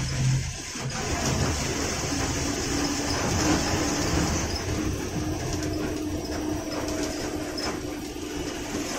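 Cabin noise of a moving state-run bus: the diesel engine running under a rattle of the body and fittings, with road noise. A steady whine runs through most of it and fades near the end.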